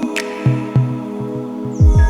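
Electronic background music: held synth tones over repeated deep bass hits, some of them dropping in pitch.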